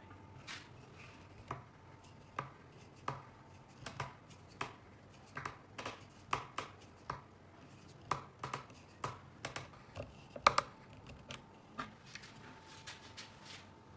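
A series of short, sharp knocks and clacks, irregularly spaced at about one or two a second, with the loudest one about two-thirds of the way through, over a faint steady hum.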